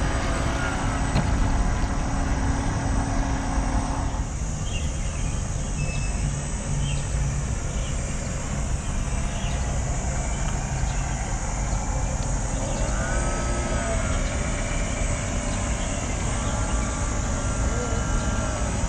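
Steady whir of a radio-controlled model ferry's small electric drive and propellers under outdoor background noise. The hum changes character and drops lower about four seconds in.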